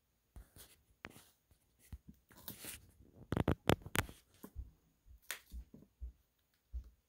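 Faint handling noise: irregular soft clicks, rustles and low thumps, with a louder cluster of clicks about halfway through. No drums are being played.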